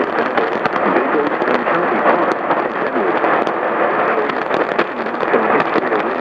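Heavy radio static and crackle over a faint, unintelligible voice, as from an alert broadcast picked up on a weak radio signal.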